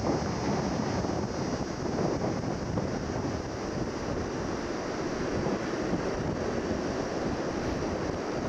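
Wind blowing across the microphone: a steady, rough noise, heaviest in the low end, with no distinct events.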